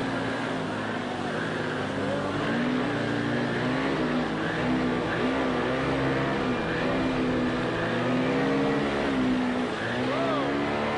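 Paramotor engine running at speed, its pitch wavering up and down as the throttle changes, with a quick rise and fall about ten seconds in.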